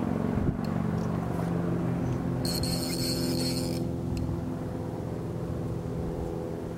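Casting reel working a large sturgeon: a steady mechanical whir of the reel turning, with a sharp buzz of line paying out about two and a half seconds in that lasts just over a second.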